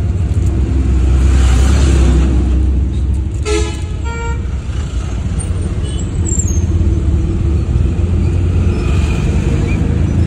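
Steady low rumble of a moving road vehicle heard from inside the cabin, with a short horn toot about three and a half seconds in.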